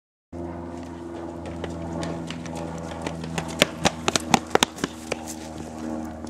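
Footsteps running on pavement, with a quick run of sharp slapping steps a little past the middle, over a steady low hum.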